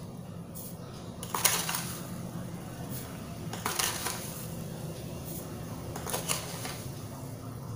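Spoonfuls of sugar being added to a saucepan of tea on a gas stove: three short spoon-and-container sounds about two and a half seconds apart, over a steady low hum.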